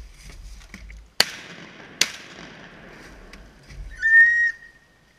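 Two shotgun shots about a second apart, each echoing away over the water, then about four seconds in a loud, steady whistle blast lasting about half a second.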